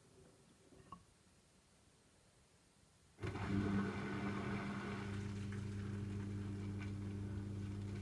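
A Gorenje SensoCare washing machine's pump starts suddenly about three seconds in and runs on with a steady electric hum and rushing water. Before that it is near quiet, with one faint click about a second in.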